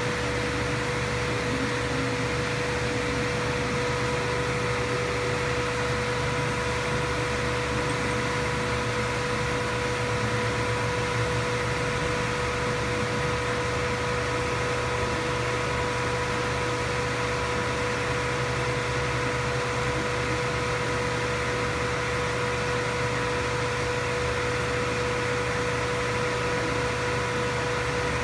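Steady fan-like machine hum with a constant high whine that never changes. A second, fainter and higher whine joins about four seconds in.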